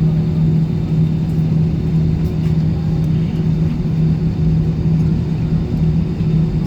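Airbus A320 cabin noise before takeoff: a steady low rumble with a constant hum from the jet engines running at low power.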